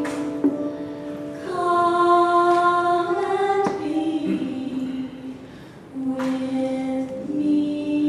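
A small group of voices, mostly women's, singing a hymn together in slow, held notes, with a short pause between phrases about five seconds in.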